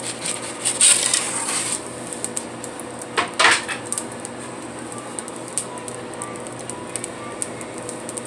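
Pizza peel scraping across the floor of a wood-fired oven as it is slid out from under a pizza: a hissing scrape about a second in and a louder, shorter scrape about three seconds in. Under it, the wood fire crackles and ticks steadily.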